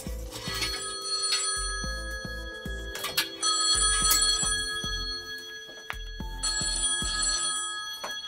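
A mobile phone ringing with a melodic ringtone. A tune with a high chiming phrase comes back about every three seconds over lower notes.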